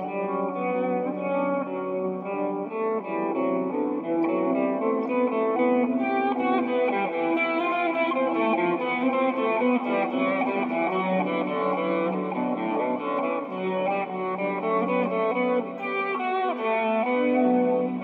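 Electric guitar played through a 1x12 speaker cabinet: a continuous run of picked notes and chords that ring into one another.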